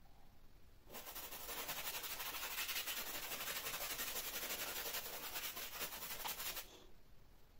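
A paintbrush scrubbing paint onto canvas: a dry rasping rub made of many quick strokes. It starts about a second in and stops sharply near the end.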